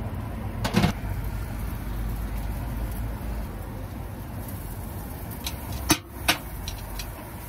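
Cast-iron bungeoppang (fish-shaped pastry) molds clanking as they are handled in a hurry. There is one knock just under a second in and two sharp knocks close together about six seconds in, over a steady low rumble.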